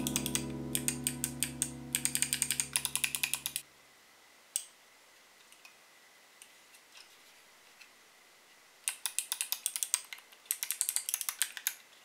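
Keys of a small mechanical macro pad pressed in fast runs of sharp clicks: one run at the start, a few single clicks after it, then two more runs near the end. Soft piano music runs under the first run of clicks and stops about three and a half seconds in.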